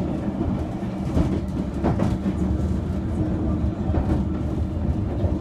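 Moving train heard from inside the carriage: a steady low rumble of wheels on the rails, with a few sharp clicks over the track.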